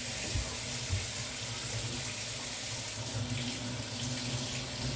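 Kitchen tap running steadily into a sink while a cucumber is rinsed under the stream.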